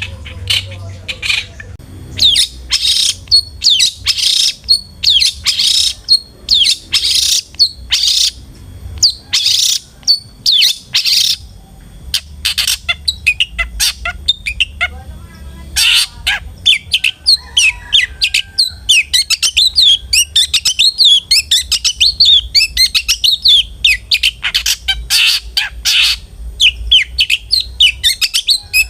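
Long-tailed shrike (cendet) singing: loud, harsh rasping calls repeated about once a second, giving way about halfway through to a fast, continuous twittering chatter of many short notes.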